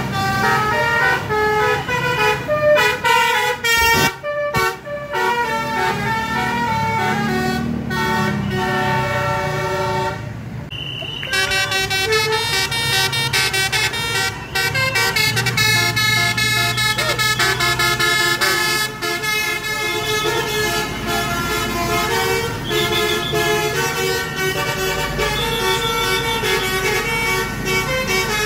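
Bus 'telolet' multi-tone horns playing a tune of stepped, held notes. The tune breaks off about ten seconds in and another horn melody starts and runs on.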